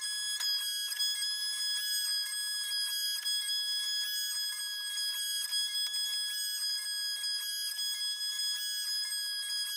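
Small DIY CNC router milling wood with a 3 mm router bit: the spindle's steady high-pitched whine, with a pulsing change about twice a second as the machine steps through its cutting moves.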